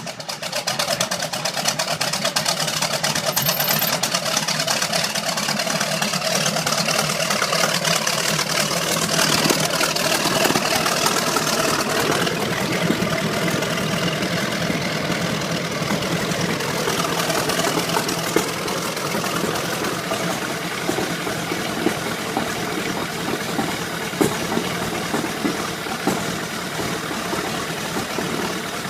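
A large engine running steadily with a dense, rapid mechanical clatter.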